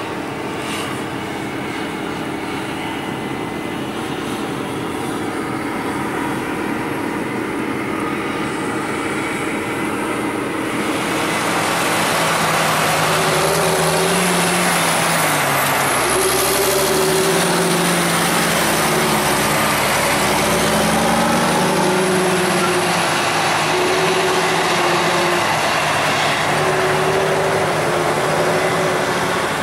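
Diesel engines of corn-harvest machinery running steadily. About a third of the way in the sound grows louder, and the engine pitch then rises and falls several times.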